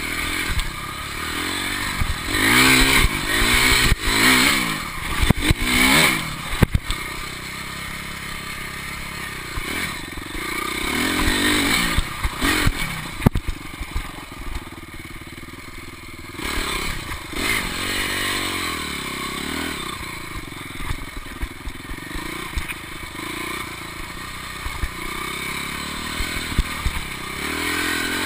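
Dirt bike engine revving up and down again and again as the bike is ridden on a dirt track, easing off for a few seconds about halfway through. Scattered knocks and rattles from the bike going over bumps run through it.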